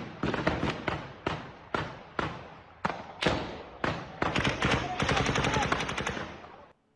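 Gunfire in a street clash: single shots about every half second, then from about four seconds in, long bursts of rapid automatic fire that cut off suddenly near the end.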